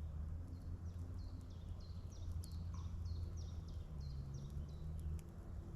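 A bird singing a run of short whistled notes, each sliding downward, about two to three a second, over a steady low rumble, with a few sharp crackles from a campfire of damp wood catching.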